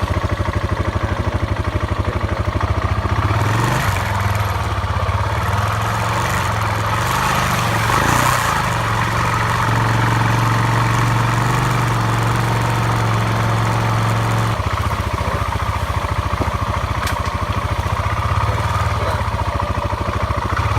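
Single-cylinder motorcycle engine running while riding, its speed changing a few times, with a louder, steadier stretch in the middle.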